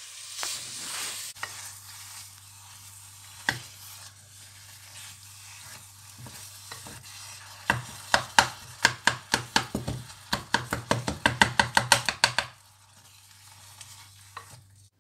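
Wooden spoon stirring chopped apricots and sugar in a hot pot, with a soft sizzle. From about eight seconds in the stirring speeds up into quick knocks of the spoon against the pot, about five a second, which stop abruptly near the end.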